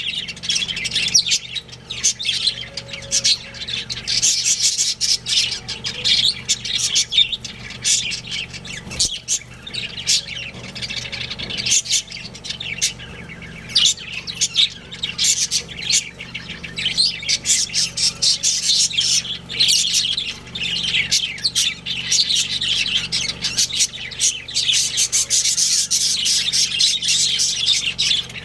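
Budgerigars chattering without pause: many quick, overlapping high chirps and warbles mixed with harsher squawks, over a faint steady low hum.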